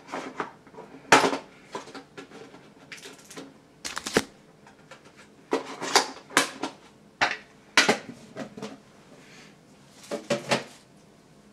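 Handling sounds of a Pokémon card tin being unpacked: irregular crinkles, rustles and clacks of the metal tin and foil booster packs, about a dozen short separate bursts.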